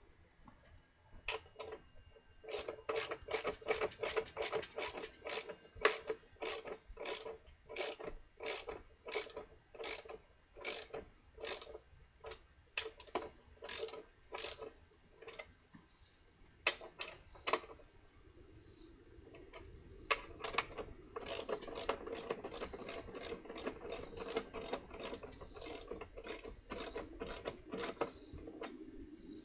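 Hand ratchet clicking in quick runs of strokes as it cranks half-inch galvanized lag bolts down into the wooden bench. In the second half a low grinding rasp runs under the clicks as a bolt bites in and tightens.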